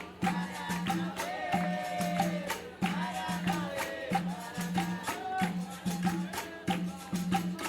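Capoeira music: percussion with shaken rattles and tambourine keeping a steady repeating rhythm, with a voice singing a drawn-out line between about one and four seconds in.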